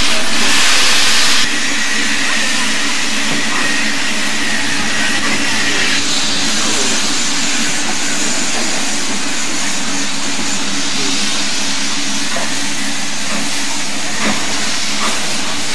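BR Standard Class 9F 2-10-0 steam locomotive 92212 moving slowly and hissing steam. A loud burst of hiss lasts about the first second and a half, then a steady hiss carries on, with a thin whistling tone until about six seconds in.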